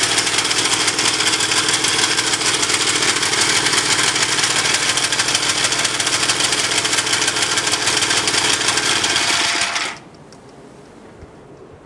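Honda F200 Komame mini tiller's small engine running steadily with a fast, even firing beat, then shut off about ten seconds in, leaving a few faint ticks.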